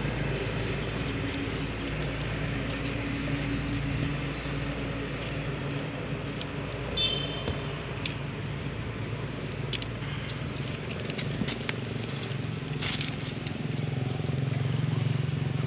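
A steady, low, engine-like drone over a wash of outdoor noise, with a brief high squeal about seven seconds in and a few light clicks.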